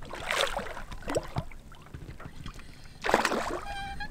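Water splashing at the side of a boat as a hooked zander is brought up to be taken by hand: a splash just after the start, a smaller one about a second in and a louder one about three seconds in. A short high tone follows near the end.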